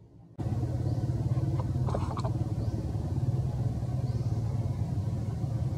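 Steady low rumble of a running motor engine, starting suddenly about half a second in, with a few faint short high chirps over it.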